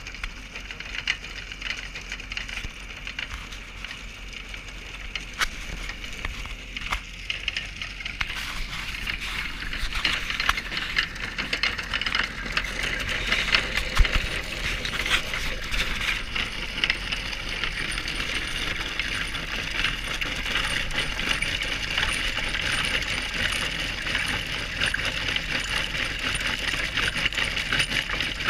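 Road milling attachment cutting asphalt: a dense, continuous rattle and crackle of cutter teeth and broken asphalt chips over the steady hum of the JCB's engine, growing louder about eight seconds in.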